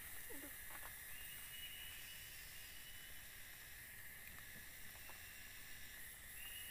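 Steady high-pitched hiss of forest ambience, with a thin high tone that comes in about a second in and again near the end, and a few faint crackles from a small campfire of sticks.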